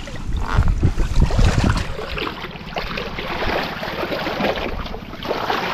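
Shallow river water splashing and sloshing around a person wading beside a small wooden boat, with wind buffeting the microphone in the first two seconds.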